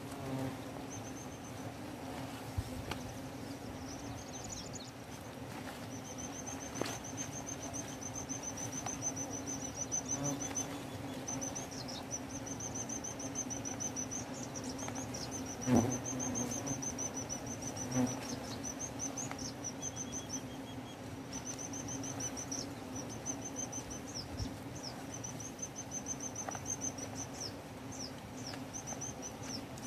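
A high, shrill insect trill runs almost without pause, broken by short gaps, over a low steady hum. Branches and leaves rustle now and then, with a sharp knock about halfway through and another a couple of seconds later.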